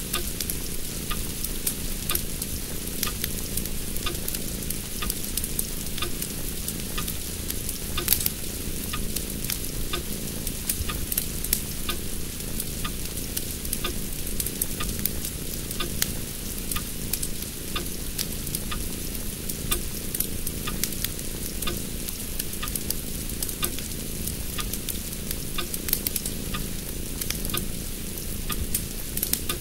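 Steady crackling hiss full of small sharp crackles, like food frying: a synthetic ambient soundscape from Soundscape: Atmosphere Deluxe software.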